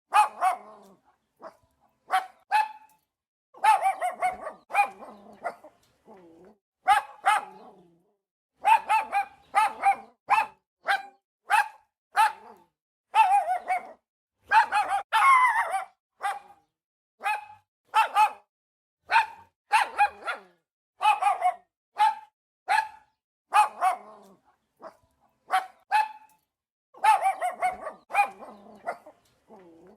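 A small dog barking repeatedly: short, sharp barks, some single and some in quick runs of two to four, with brief silent gaps between them.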